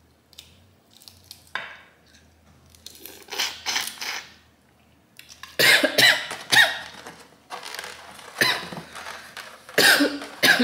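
Boiled crawfish shells cracked and peeled by hand, then a run of loud eating sounds: slurping the spicy juice from the heads, and coughing at the heat of the seasoning.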